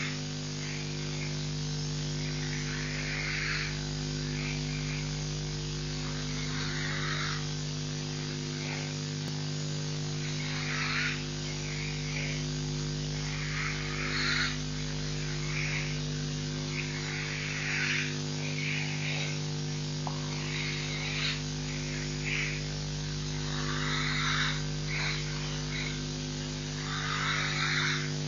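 An old African buffalo's laboured breathing: short noisy breaths recurring irregularly every second or two, the sign of a respiratory problem. A steady electrical hum from the live-stream microphone runs underneath.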